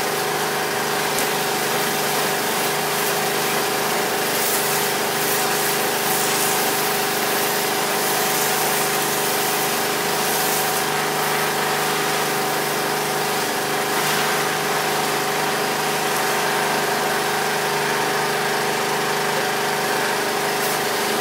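Pressure washer running steadily: a constant motor hum with a hiss over it.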